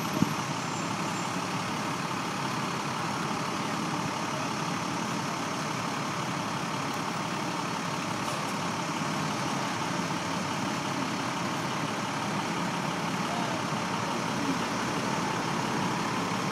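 Fire engine's diesel engine idling steadily, an even, unchanging drone.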